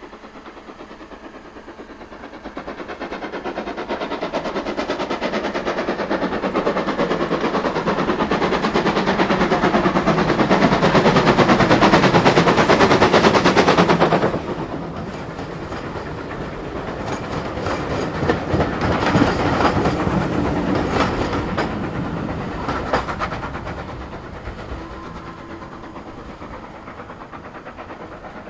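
Steam locomotive hauling a passenger train past, a rapid clatter of beats building to a loud peak. The sound drops sharply about fourteen seconds in, then the coaches' wheels click over the rail joints and fade away.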